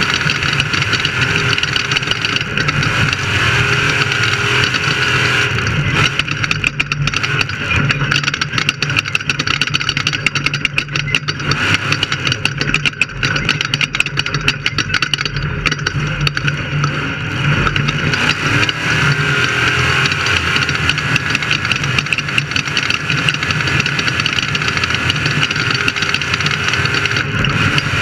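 Off-road race vehicle's engine running steadily and loudly, with a dense, unbroken drone.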